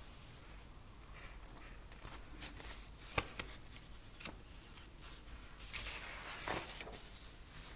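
White paper cards handled by cotton-gloved fingers: soft rustling and sliding of paper, with a few crisp paper snaps about three seconds in and again near six and a half seconds as the top card is peeled back.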